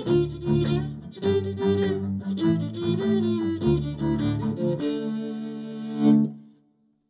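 Fiddle playing the closing bars of a jig, with low notes beneath the melody. About five seconds in it settles on a long held final chord that swells, then fades out to silence.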